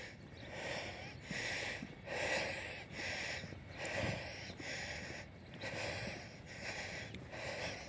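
A man breathing hard in a steady rhythm of in-and-out puffs while hiking under a heavy backpack.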